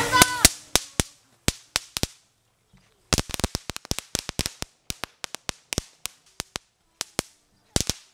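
Magic whip firecracker string burning along the ground, popping off in sharp, irregular cracks: a handful in the first two seconds, a short lull, then a quick, uneven run of cracks.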